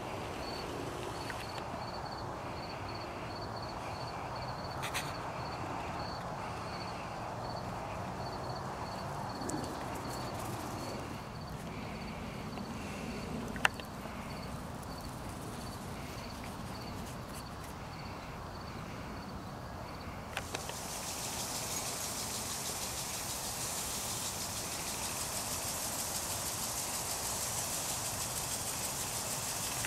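Outdoor ambience: a steady low rumble of distant road traffic, with a faint high chirp repeating about twice a second for the first two-thirds. A single sharp click comes about halfway through, and from about two-thirds in a steady high hiss sets in abruptly.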